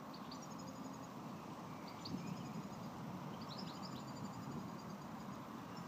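A steady, unexplained low drone hanging in the air, seeming to come from all around, with small birds chirping and trilling over it.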